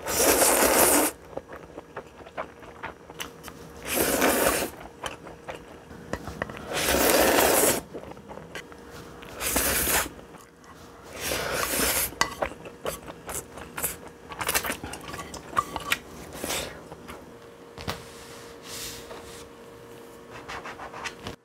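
Close-miked eating sounds of stir-fried instant noodles: loud slurps about a second long every two to three seconds, with small clicks of chopsticks or cutlery against a dish and softer chewing between them.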